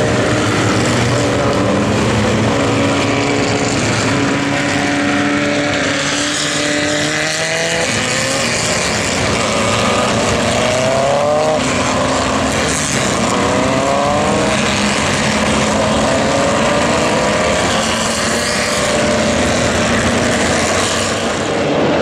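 A pack of historic Formula Vee racing cars with VW Beetle-based engines running together: many engines at once, with several rising sweeps in pitch as cars accelerate through the gears, most plainly between about six and fifteen seconds in.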